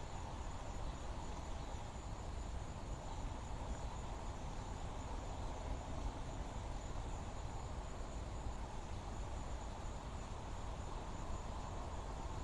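Steady outdoor ambience: insects chirring in a high, faintly pulsing band over a low, even rumble.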